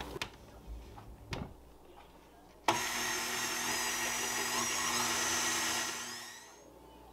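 A couple of light knocks, then a KitchenAid Artisan stand mixer's motor switches on abruptly about three seconds in and runs steadily, turning its dough hook through a wet bread mixture. Near the end it switches off and the whine winds down, falling in pitch.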